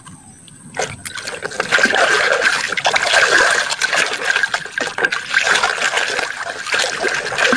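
Water running and splashing over a muddy toy vehicle as it is rinsed, starting about a second in and going on steadily with a crackling spatter and a thin steady tone through it.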